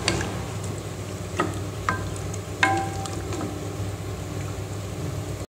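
Wooden spatula stirring soaked basmati rice through water in a pressure cooker, knocking against the pot four times in the first few seconds, the later knocks ringing briefly. A steady low hum runs underneath.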